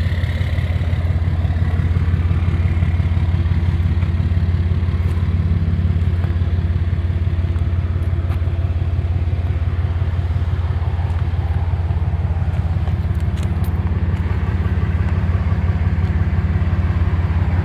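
Dodge service truck's engine idling steadily, with an even low throb.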